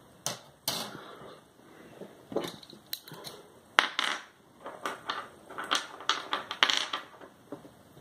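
Irregular light clicks and clacks of small hard metal and plastic computer parts being handled and set down on a wooden tabletop, with a louder knock about four seconds in.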